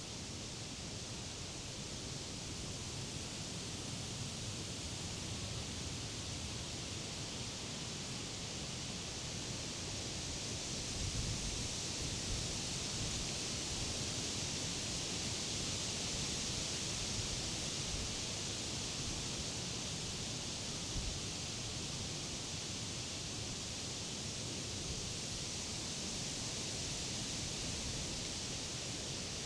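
Wind rustling through the leaves of summer trees and grass: a steady, even hiss that swells gently over the first ten seconds or so, with a low rumble and a few soft gusty thumps underneath.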